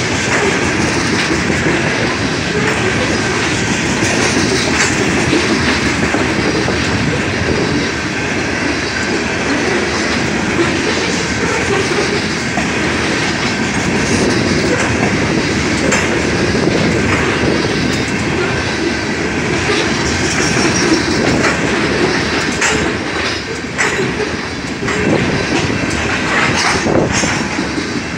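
Covered hopper cars of a BNSF grain train rolling past: a steady rumble of steel wheels on rail, with scattered clicks and clatter as the wheels pass over rail joints.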